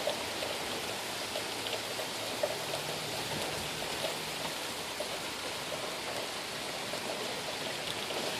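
Heavy rain pouring steadily: an even, constant hiss of falling water.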